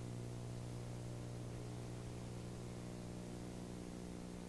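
Steady low electrical hum with a faint hiss beneath it, the recording's background noise; no other sound is heard.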